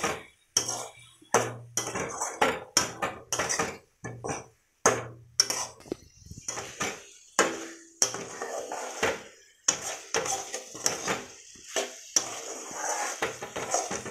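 A spatula scraping and knocking against a metal wok, over and over in an irregular rhythm, as fried potato chunks are stirred through a thick masala, with brief pauses about half a second and about four seconds in.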